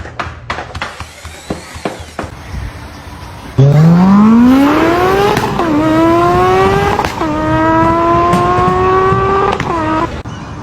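A few knocks, then an engine accelerating hard: its pitch climbs, drops sharply twice as if shifting gear, climbs again, and then cuts off.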